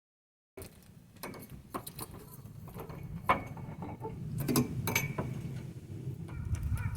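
A brief silence, then a run of irregular small clicks and clinks, like metal parts being handled, over a low steady hum.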